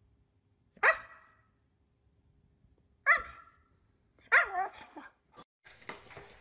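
A husky giving three short, pitched bark-like calls about two seconds apart, the last one wavering and falling off.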